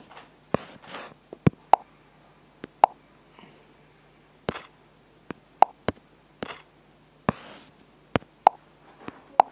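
About a dozen sharp, irregularly spaced taps and clicks, with a few short soft swishes between them: fingertip taps and swipes on a smartphone's touchscreen, picked up close by the phone's own microphone.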